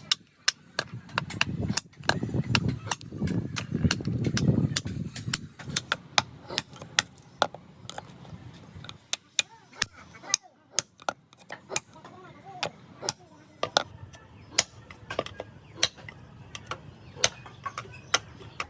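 A hammer striking wood again and again, with sharp irregular knocks about two or three a second, as the wooden wheel is worked by hand.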